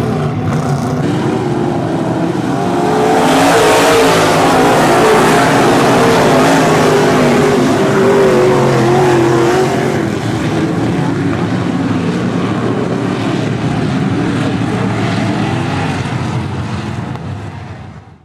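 A field of IMCA Modified dirt-track race cars' V8 engines at full throttle. The pack passes loudest from about three to ten seconds in, as the green flag waves. The sound fades out near the end.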